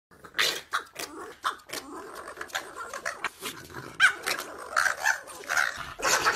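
Small dogs play-fighting, with short growls and yaps coming in quick succession.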